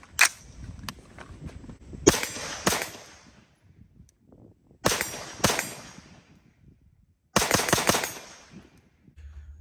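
Shots from an M4-style 5.56 mm carbine, each sharp crack trailing off briefly. Fired mostly in pairs about half a second apart: one shot right at the start, pairs about two and five seconds in, then a quick string of several shots near the end.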